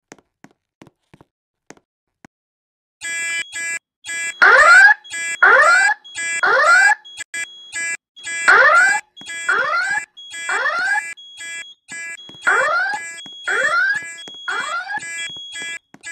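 A school's voice-evacuation fire alarm starts sounding about three seconds in. It gives rising whoop tones in groups of three, repeated three times, over a pulsing horn tone: the building evacuation signal during an alarm test.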